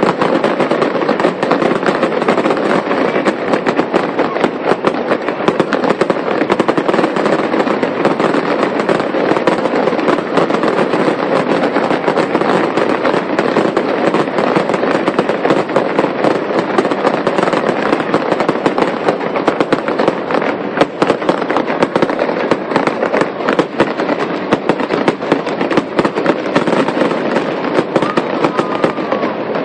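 Fireworks going off at close range in a continuous, dense barrage of crackling and popping, with sharp cracks packed closely together and no pause.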